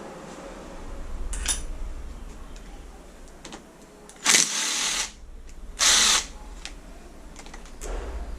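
A power driver with a 10 mm socket spinning out the bolts that hold the crankcase halves together, in two short bursts about a second and a half apart, with a few lighter clicks of tool and bolts around them.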